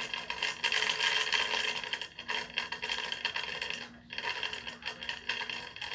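Generic Storm Gyro S3 Beyblade-type spinning top whirring on ceramic floor tiles, its tip giving a steady, dense rattle of rapid fine clicks.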